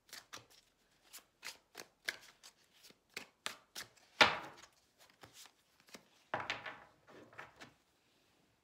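A tarot deck being shuffled by hand: an irregular run of short card snaps and rustles, with one sharp slap about four seconds in and a denser rustle a couple of seconds later.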